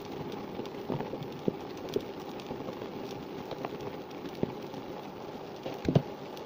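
Chunks of cut eggplant dropped into a stainless steel pot of water: a few soft knocks and splashes, the loudest near the end, over a steady hiss.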